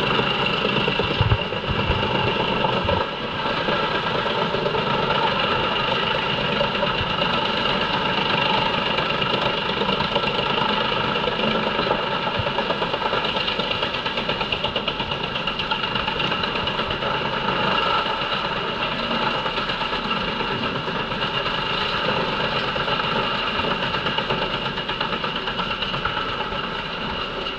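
JENZ HEM 593-R truck-mounted wood chipper running under load, chipping poplar logs fed in by its crane: a steady, loud machine din with a high whine over it. There are a few low knocks in the first three seconds.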